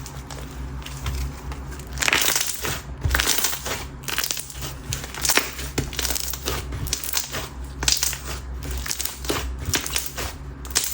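Coated clear slime with a gritty mulch topper mixed in, being squeezed and kneaded by hand: quieter for the first couple of seconds, then a run of crackling pops as trapped air bursts.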